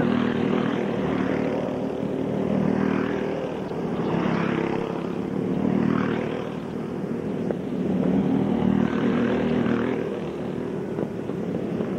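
Small 5 hp single-cylinder go-kart engines racing around the track, a steady buzzing drone that swells and fades every second or two as karts pass by.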